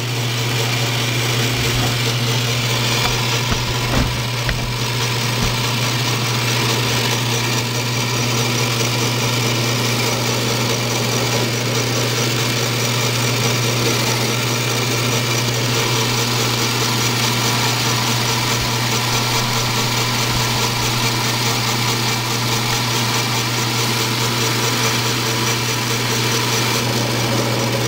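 Atlas-built Craftsman 6-inch bench lathe running steadily under its electric motor and belt drive: a constant motor hum with the whir of the spindle and drive, as the tool turns an aluminum workpiece.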